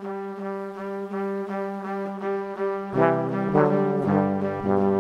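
Background music: a held chord pulsing in quick repeated notes, which grows louder and fuller as lower notes come in about three seconds in.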